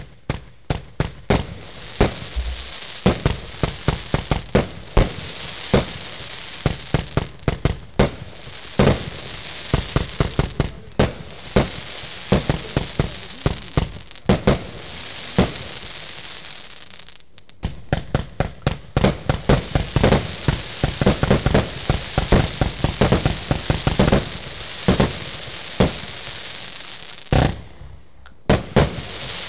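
A 75-shot, 30 mm compound fireworks cake firing shot after shot in quick succession. Sharp launch thumps sound over a dense, continuous crackling from the crackling-willow stars, and the firing pauses briefly twice, the second time near the end.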